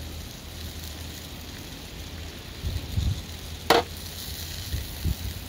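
Beef steak sizzling steadily as it roasts, with a few dull thumps and one sharp knock about two-thirds of the way through.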